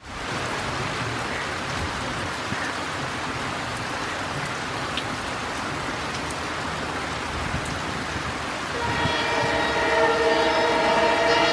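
Steady hiss of rain while an Indian Railways diesel locomotive approaches, then the locomotive's horn sounds about nine seconds in and holds as a steady multi-tone blast, growing louder to the end.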